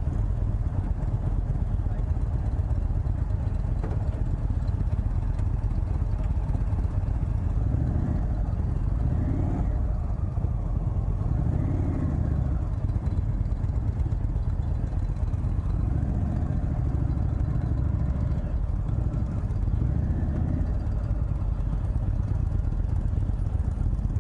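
The V-twin engine of a 2018 Indian Chieftain Elite with a stage 2 upgrade running steadily at low revs, with a few brief swells in pitch.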